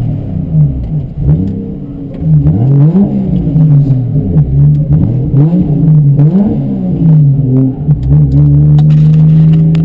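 Car engine revving, its pitch rising and falling several times, then held steady at high revs for the last couple of seconds.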